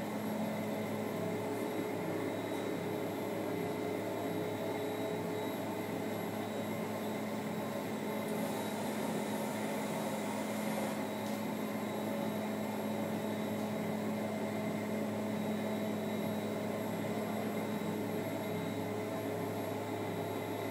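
Technogym commercial treadmill running unloaded at a low belt speed of about 4 km/h: a steady motor and belt hum with a few held tones.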